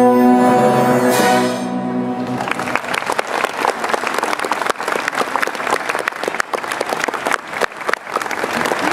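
A symphony orchestra holds its final chord, which ends about a second and a half in. An audience then breaks into sustained applause.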